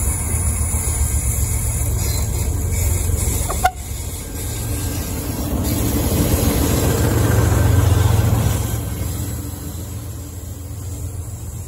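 KTMB Class 26 diesel locomotive running as it approaches and passes close by, hauling a freight train; the low engine rumble swells to its loudest about eight seconds in as the locomotive draws level, then eases off. A single sharp click about a third of the way in.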